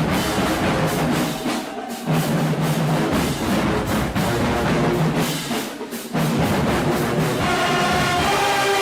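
College marching band playing: drums over low brass notes, with two brief breaks. Near the end the horns come in on a held chord.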